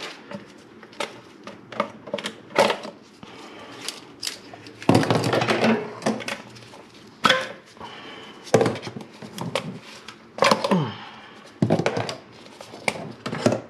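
Scattered clicks and knocks, with a couple of longer rustling, scraping stretches about five and ten seconds in, as spark plug wires are pulled off and handled around a VR6 engine.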